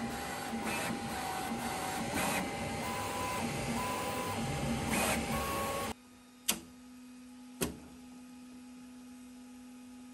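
3D printer running, a steady whir with short tones that jump between pitches as the motors move. About six seconds in the sound cuts to a quieter steady hum with two sharp clicks.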